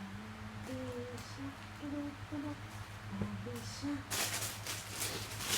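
A person humming a slow tune in short held notes, with a burst of rustling about four seconds in.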